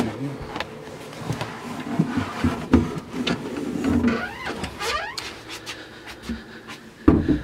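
Handling noise while moving through a cramped boat locker: scattered knocks and rustling, with a rising squeak about four to five seconds in and a short, louder sound near the end.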